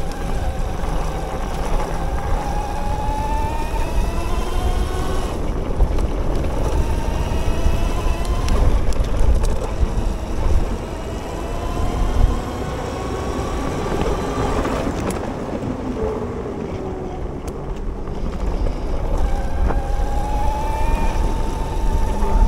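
Bafang BBSHD mid-drive e-bike motor whining, the pitch climbing again and again as the bike accelerates and dropping off between pulls, over a low rumble of wind on the microphone.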